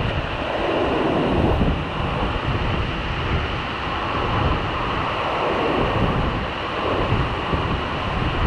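Steady rushing water of the river at the dam, loud and swelling a little, with wind buffeting the microphone.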